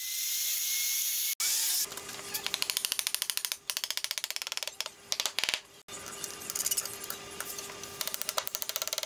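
A handheld trim router cutting a groove in pine with a high whine, cut off abruptly about a second and a half in. After that comes a rapid run of even ticking clicks, about ten a second, in several spells over a faint steady hum.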